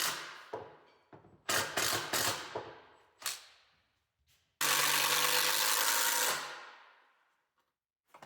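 Woodworking shop sounds: wooden pieces knocking and clattering several times, then a power tool runs loudly for under two seconds and winds down.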